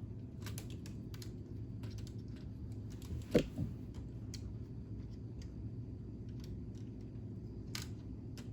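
Plastic K'Nex pieces clicking and knocking as they are handled and fitted, with one louder knock about three seconds in, over a steady low hum.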